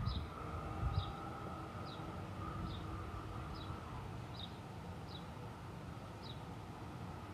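A bird repeating a short, high, falling chirp about once every second, over a low rumble of wind with a gust at the start.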